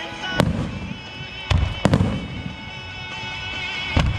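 Aerial firework shells bursting: four booms, about half a second in, two close together around a second and a half to two seconds, and one near the end, over steady background music.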